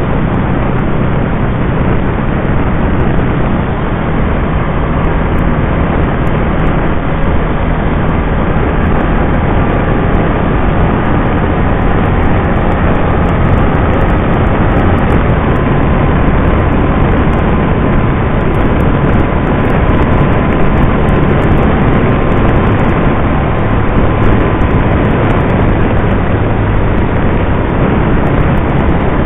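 Can-Am Spyder RT three-wheeled motorcycle riding at steady road speed: a loud, even rush of wind over the microphone with the engine running underneath.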